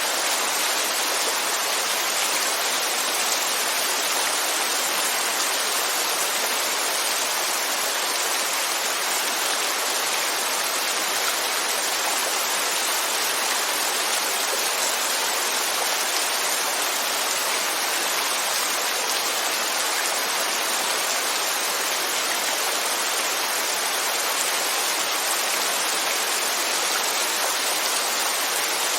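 Steady rainfall, an even hiss of many drops that neither swells nor fades.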